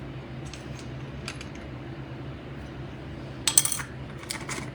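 Measuring spoons clinking against a seasoning container and mixing bowl: a few light clicks, then a louder cluster of clinks about three and a half seconds in, and a few more near the end.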